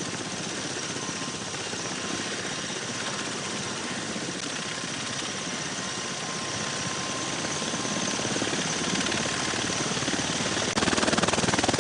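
V-22 Osprey tiltrotor's twin turboshaft engines and proprotors running, a steady loud rush with fast rotor beating and a thin steady whine. It grows louder and jumps up suddenly near the end.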